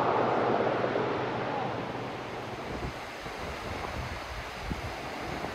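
Steady rush of the Cache la Poudre River flowing over a rocky bed, with wind gusting on the microphone. The noise fades over the first couple of seconds, then settles to a softer, even rush.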